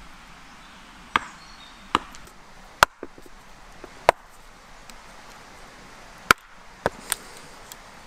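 Axe blows splitting a short log on a wooden chopping block: seven sharp, separate strikes, irregularly spaced, the last two close together. The log is being split through its centre to make a carving blank less likely to crack.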